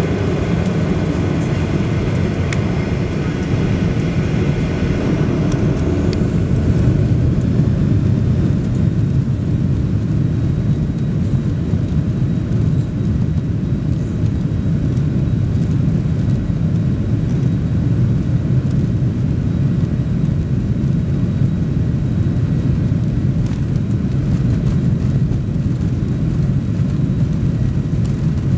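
Cabin noise of a Boeing 737 Next Generation's CFM56-7B turbofan engines spooling up for takeoff: a whine rises in pitch a few seconds in, then settles into a steady, loud low roar as the jet accelerates down the runway.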